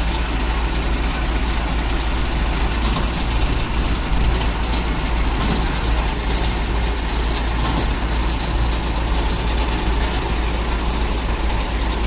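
Diesel engine of a wheeled paver finisher running steadily at close range, an even low drone with no breaks.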